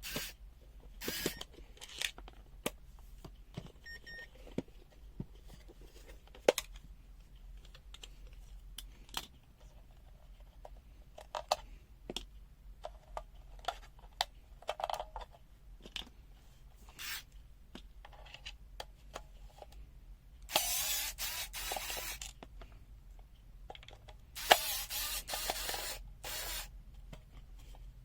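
Hands opening a plastic multimeter case: scattered sharp clicks and light scrapes, with two longer scraping, rustling bursts near the end.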